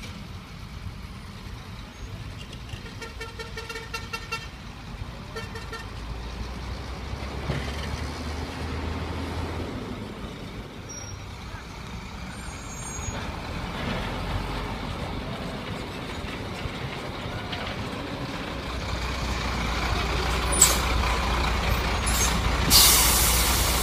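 Heavy diesel dump truck engines rumbling as loaded Shacman trucks move and tip rock. A short run of pulsing beeps comes about three seconds in. Near the end, sharp air-brake hisses sound, one brief and then a longer, louder one.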